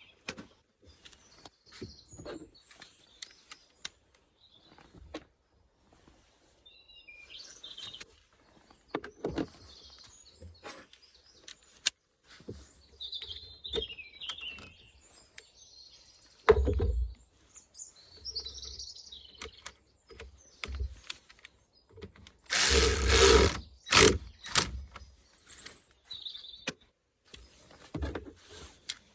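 Small birds chirping and singing now and then, with scattered clicks and knocks of parts being refitted on the car. About three-quarters of the way through comes a loud rushing burst of about a second, then a shorter one.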